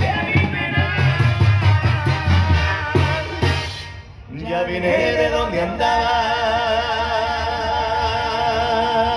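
Music with singing and a drum beat. The beat stops about four seconds in, and long held, wavering notes follow.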